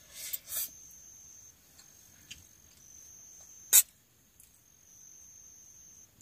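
A cricket trills steadily on one high note in long stretches broken by short pauses. Over it come a short slurp of noodles just after the start and a sharp clink of a fork against a metal bowl about two-thirds of the way through.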